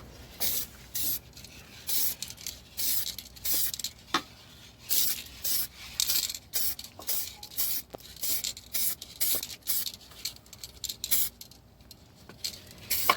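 Aerosol spray-paint can sprayed in short, irregular hissing bursts, about two a second, with a couple of sharp clicks in between.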